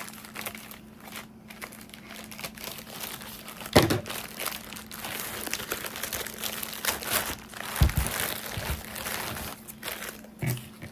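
Plastic packaging crinkling and rustling as a hard, vacuum-sealed parcel is handled, with a sharp knock about four seconds in and a few dull thumps around eight seconds.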